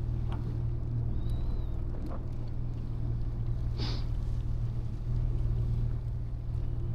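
A boat's engine running steadily with a low hum, and a few brief faint knocks or squeaks over it.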